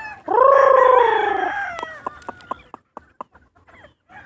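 Rooster crowing once, a loud call of a little over a second that starts shortly after the beginning and trails away. It is followed by a run of short, sharp clicks.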